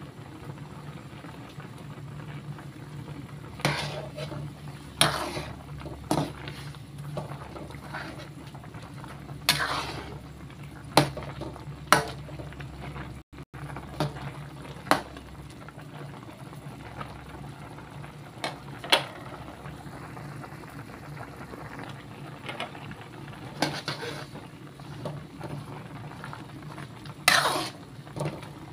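A metal ladle stirring chicken pieces in a pot of boiling broth, knocking and scraping against the metal pot about a dozen times at irregular intervals over a steady bubbling.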